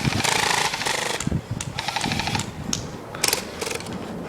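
Airsoft electric guns firing on full auto: three short rapid bursts, each a fast even ticking with a gearbox whine, the last one briefest.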